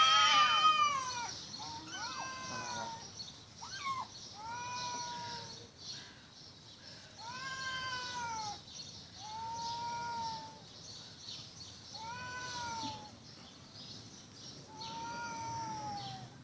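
Cats yowling at each other in a fight standoff. Long drawn-out calls rise and fall in pitch, one about every two seconds, and the first is the loudest and highest.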